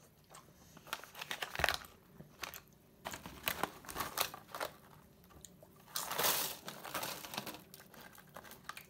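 Plastic food pouches crinkling as they are handled and folded, in several bursts with short pauses between.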